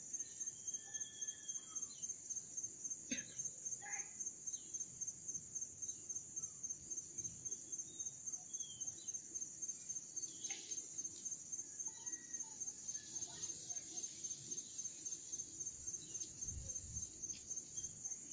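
High-pitched insect chirping, a steady even pulse about five times a second.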